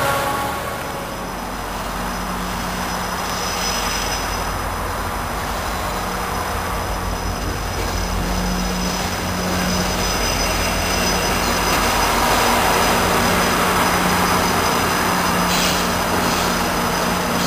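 GO Transit commuter train's diesel locomotive approaching, a steady engine hum over a rumble that grows gradually louder.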